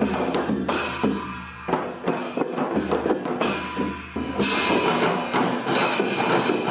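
Newar dhime drums beaten in a steady processional rhythm, with clashing cymbals ringing over the strokes. It gets louder and fuller about four seconds in.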